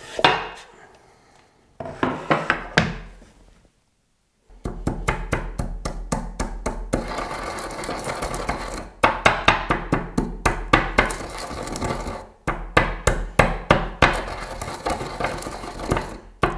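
Whole coriander seeds, black pepper, cumin, dried chili and coarse sea salt crushed with a pestle in a white ceramic mortar: a fast, dense run of crunching, clicking strokes that starts about four seconds in and breaks off briefly twice. Before it, a few scrapes and taps as salt is swept off a bamboo cutting board into the mortar.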